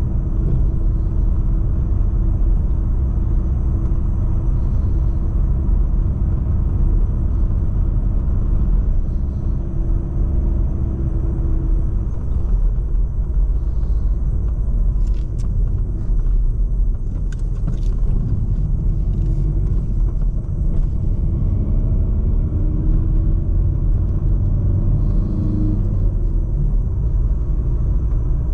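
Volkswagen Golf VII's 1.6 TDI four-cylinder turbodiesel engine and tyre rumble while driving on the road. A steady engine tone drops away about halfway through, a few short knocks come in the middle, and near the end the engine note rises and falls.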